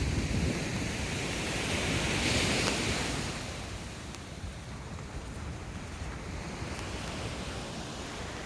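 Ocean surf washing onto the beach, one wave swelling about two seconds in and then fading, with wind rumbling on the microphone throughout.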